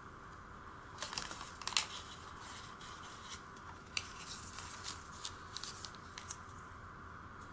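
Origami paper being folded and creased by hand: scattered crisp crinkles and rustles, loudest a little under two seconds in.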